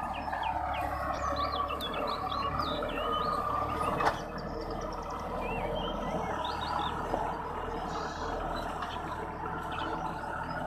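Compact four-wheel tractor engine running steadily as it pulls a disc plough through the soil, with small birds chirping over it. A single sharp knock about four seconds in.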